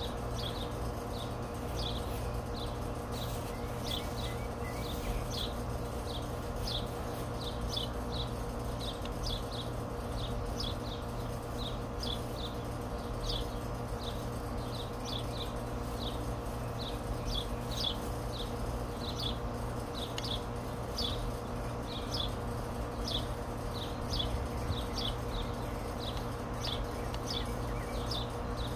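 A bird chirping over and over, short high downward chirps about one or two a second, over a steady low background hum.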